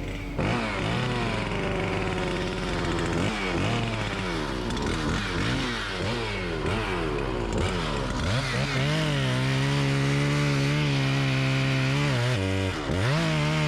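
Chainsaw revving up and down again and again, then held at high speed for a few seconds, dropping briefly near the end before revving up again.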